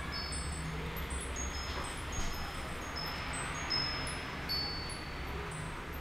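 High, light chime notes at scattered moments, a few a second, each at a different pitch and ringing briefly, over a steady low hum.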